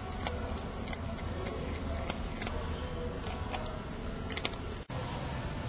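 A cat eating from a bowl: scattered soft clicks and crunches over a steady low background hum.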